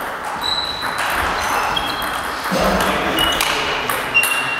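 Table tennis ball clicking back and forth off rubber paddles and the table during a doubles rally, with a few short high squeaks of shoes on the wooden floor.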